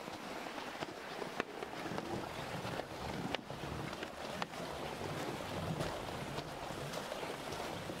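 Steady rushing noise with a few sharp clicks, one each about a second and a half, three and a half and four and a half seconds in.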